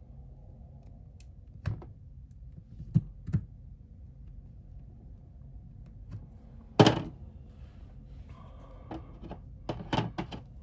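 Sharp clicks and knocks of small repair tools and the phone being handled on a workbench: three short ones in the first few seconds, a louder knock near the middle, and a quick cluster of clicks near the end.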